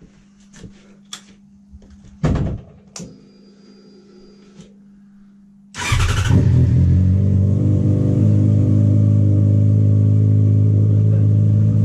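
A few clicks over a faint steady hum, then about six seconds in the Yamaha FZ6 Fazer S2's inline-four engine fires with a sudden burst and settles into a steady idle. It is running through a newly fitted Beowulf aftermarket exhaust with the catalytic converter removed.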